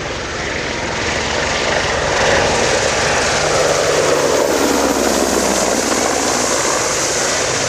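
EH101 helicopter's three turboshaft engines and rotors running in a display flight, a loud steady noise that swells a little about two seconds in.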